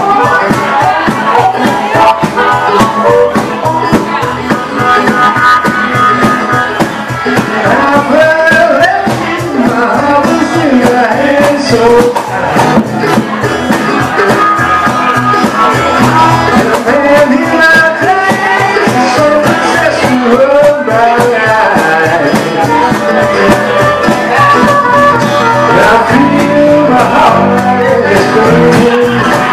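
Live acoustic band music: strummed acoustic guitar and a small stringed instrument playing a steady, loud passage of an original song.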